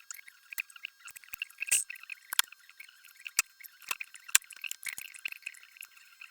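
A run of irregular sharp clicks and light taps, a few louder ones among them, over faint hiss.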